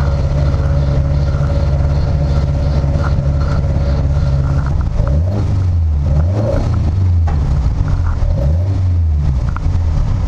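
Lada VFTS rally car's four-cylinder engine heard from inside the cabin, running at low revs while the car creeps along. In the second half the revs rise and fall twice.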